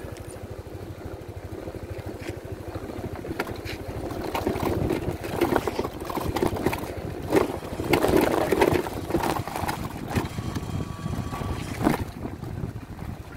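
Yamaha NMax 155 scooter's single-cylinder engine running under load on a rough uphill dirt road, with scattered knocks from the bumpy ride. It gets louder in the middle.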